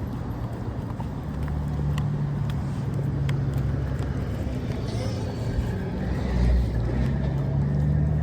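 A motor vehicle engine running steadily, its pitch rising a little near the end, with scattered light clicks.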